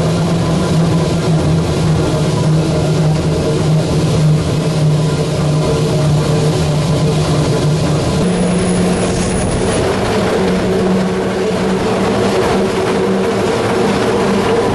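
Vintage Bernina Railway electric locomotive running, heard from on board: a steady hum from the traction motors and gearing over rail and running noise. The hum steps up slightly in pitch about eight seconds in.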